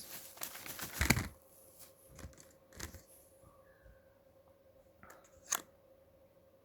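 Packaging of a RAM module pair being handled: crinkling and rustling with sharp clicks, busiest in the first second or so, then a few scattered clicks.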